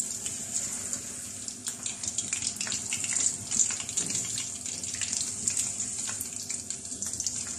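Battered, sesame-coated chicken strips deep-frying in hot oil in a karahi: a steady sizzle with many small crackles as fresh strips are lowered in.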